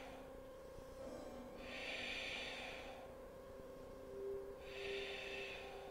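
A woman breathing slowly and audibly in a yoga pose: two long, hissing breaths about three seconds apart, the second near the end.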